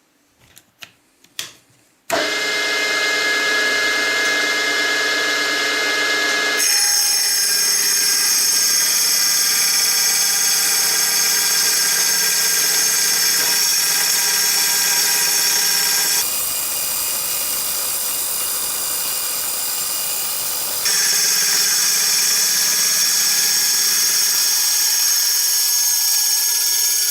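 A few clicks, then about two seconds in a carbide-tipped circular saw blade on a milling machine spindle starts up and runs through aluminium plate at a fast hand feed: a loud, high-pitched ringing whine that changes tone several times as the cut goes on.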